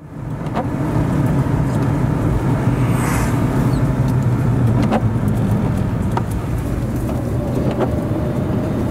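Car driving on a wet road, heard from inside the cabin: a steady drone of engine and tyres, with a brief swell of hiss about three seconds in and a few faint clicks.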